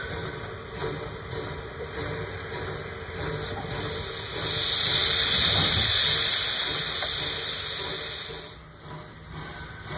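A loud hiss of pressure being vented from railway equipment. It starts about four seconds in, lasts about four seconds and cuts off sharply, over a steady engine running underneath.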